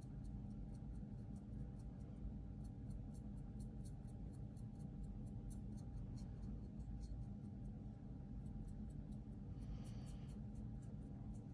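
Light, quick scratches of a soft paintbrush dry-brushing paint onto a plastic model cockpit part, over a steady low hum.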